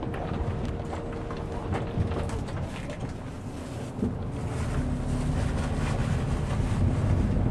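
Express highway bus driving, its engine and road noise heard from inside the passenger cabin, with a few clicks and rattles from the bus body. About halfway through, a lower engine hum comes in and the noise grows louder.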